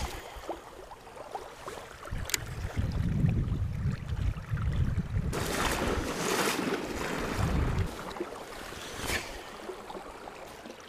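Wind buffeting the microphone in gusts over the rush of river water, with a few sharp clicks.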